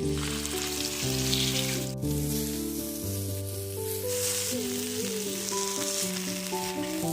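Food sizzling as it fries in hot oil in a pan, a steady hiss over background music. The sizzle breaks off for a moment about two seconds in.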